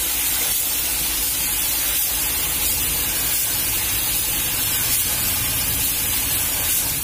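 Gravity-feed paint spray gun hissing steadily as compressed air atomises paint onto a car door panel, with a low hum underneath.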